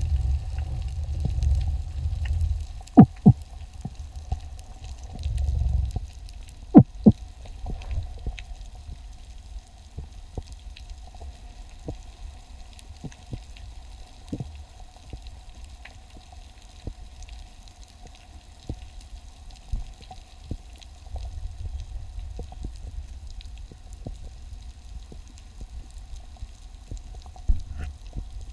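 Underwater ambience with scattered sharp clicks and crackles, two pairs of loud knocks about three and seven seconds in, stretches of low rumbling, and a faint steady hum.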